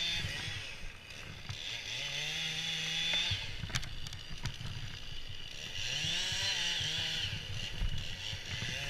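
Chainsaw revving up into a cut twice, each run held about two seconds before the engine drops back toward idle, with a few short knocks between the runs.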